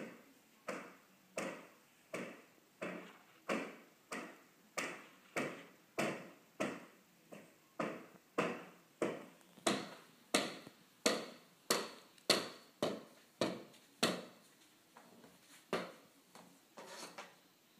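A steady series of sharp ticking clicks, about one and a half a second, thinning to a few fainter, irregular clicks near the end.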